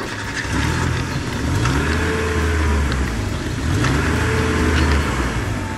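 Sports car engine sound effect: a car engine running and revving, its pitch rising and falling twice.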